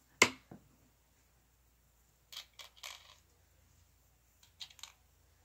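Small metal clicks and clinks as washers are set onto the threaded posts of deep-cycle batteries: one sharp click about a quarter second in, then a few quieter clinks around three seconds and again near five seconds.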